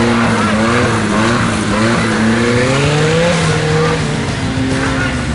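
Off-road buggy's engine revving under load as it climbs a muddy slope. Its pitch rises steadily for a couple of seconds, holds, then falls off about four seconds in.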